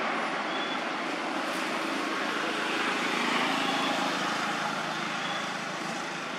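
Steady outdoor background noise with no voices or monkey calls, and a faint short high chirp about every second and a half.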